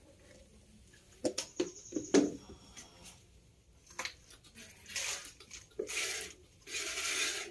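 Streams of milk squirting into a plastic bucket as a cow is milked by hand, heard from about five seconds in as hissing spurts roughly once a second. Before that there are a few sharp knocks as the plastic bucket is handled.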